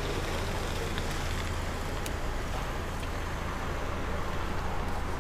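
HGV's diesel engine idling steadily with the truck stopped, heard from inside the cab as a low, even rumble.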